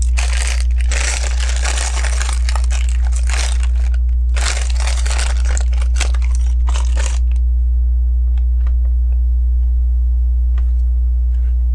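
Plastic Lego pieces rustling and rattling for about seven seconds as they are searched through, followed by a few light clicks of bricks. A steady mains hum runs underneath.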